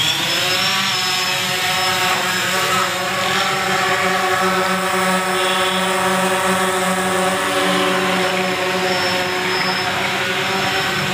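Quadcopter drone's propellers whining steadily as it hovers close by, the pitch rising in the first second.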